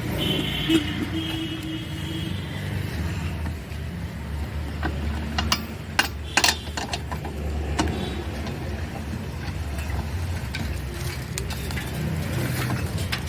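Sharp metallic clicks and clinks of a wheel brace working the wheel nuts, tightened clockwise by hand, loudest a few times around the middle, over a steady low rumble.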